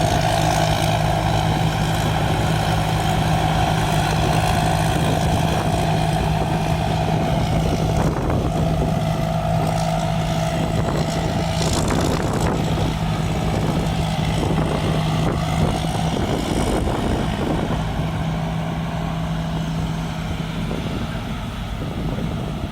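Rice combine harvester running steadily while harvesting: a constant engine hum under the busy mechanical noise of the machine.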